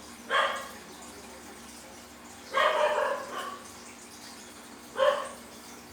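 Slime squelching and popping with small fart-like noises as it is pressed and squeezed, in three short bursts.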